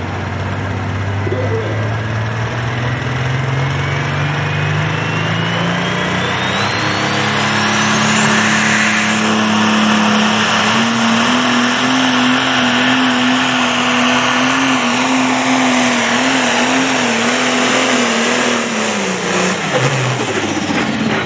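Pro stock pulling tractor's turbocharged diesel engine revving up under the load of the sled, its turbo whistle climbing steeply over the first ten seconds. The engine then holds at high revs with a wavering note as the tractor hops and spins its tyres, and drops off about a second and a half before the end.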